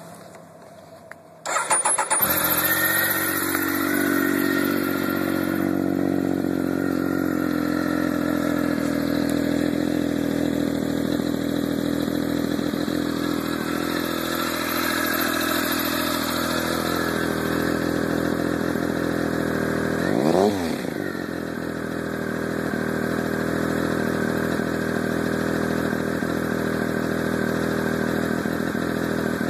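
Triumph Daytona 955i's inline-three engine cranked by the starter and catching about two seconds in, then idling steadily through its stock silencer drilled with half-inch and 3/8-inch holes. One quick throttle blip, pitch rising and falling, about two-thirds of the way through.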